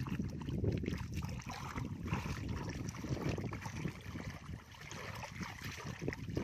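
Bare hands digging and squelching through soft wet mud and muddy water, with wind rumbling on the microphone.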